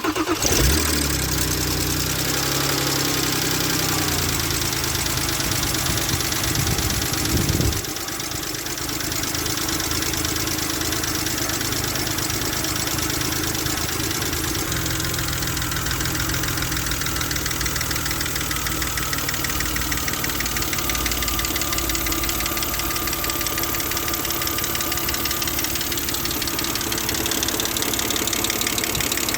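BMW N52B25 inline-six engine idling with a rapid, continuous tick-tick-tick from the valvetrain; the engine note drops slightly about eight seconds in. The owner blames the hydraulic lifters, whose ticking he hears after a cold start.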